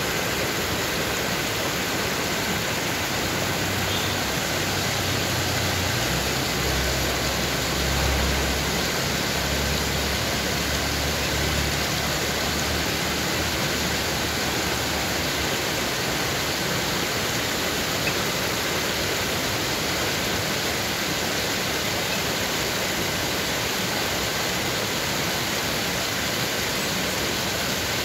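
A small stream cascading over rocks, a steady rush of water. A low rumble swells for several seconds in the middle.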